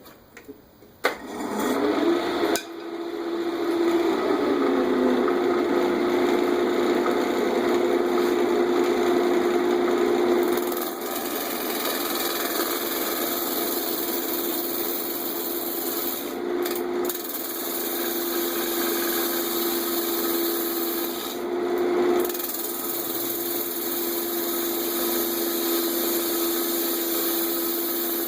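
Wood lathe switched on about a second in, its hum rising as it spins up and then holding steady, while a bowl gouge cuts across the face of the spinning MDF disc to true it up, a steady scraping hiss. The cutting breaks off briefly twice as the tool comes away.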